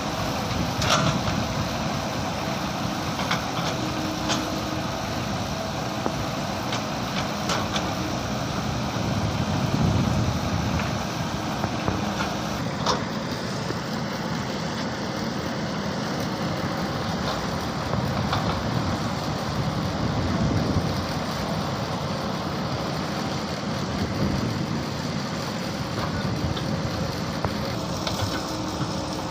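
Mini excavator engine running steadily, with scattered sharp knocks.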